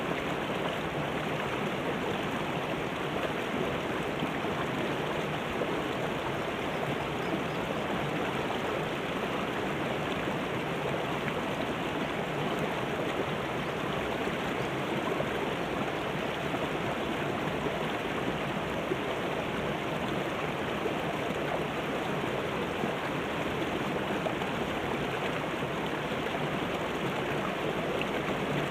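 Shallow mountain river rushing over boulders and small rapids: a steady, even rush of water.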